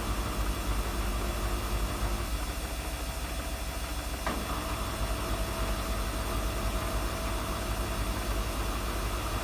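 Samsung washing machine running with a steady low hum and the squeaking it is being filmed for. A single click comes about four seconds in, after which a thin steady squeal holds.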